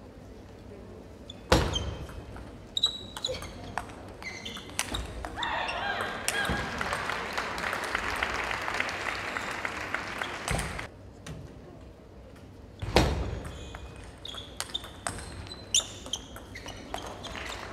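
Table tennis ball ticking back and forth off the bats and the table in quick rallies, echoing in a large hall. Two louder smacks stand out, about a second and a half in and again about thirteen seconds in.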